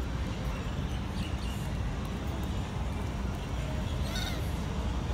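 Steady low rumble of outdoor background noise, with one brief high call about four seconds in.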